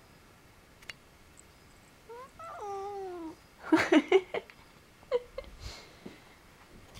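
A domestic cat meows once, long and drawn out, its pitch sliding down, about two seconds in. A quick cluster of louder short sounds follows, then a brief short call.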